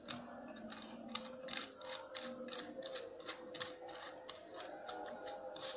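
Faint, irregular small clicks and scrapes of fingers screwing the round metal mounting nut onto the threaded shaft of a wall-clock movement, tightening it down against the canvas.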